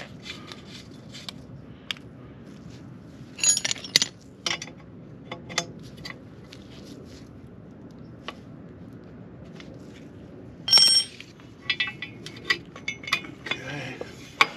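Scattered metal clinks and clicks of a wrench and hand tools as an oxygen sensor is fitted back into a motorcycle exhaust pipe. A louder clatter comes about four seconds in, and a louder ringing clink near eleven seconds.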